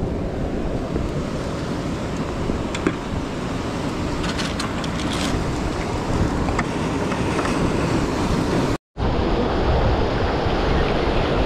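Ocean surf breaking and washing over jetty rocks, a steady rushing mixed with wind buffeting the microphone. A few light clicks come through in the first half, and the sound drops out for a moment about nine seconds in, after which the surf is a little louder.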